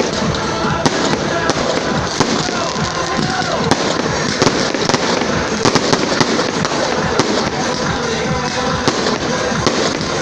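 Fireworks display going off: a rapid, irregular run of sharp bangs and crackles, several a second, over a continuous rumble.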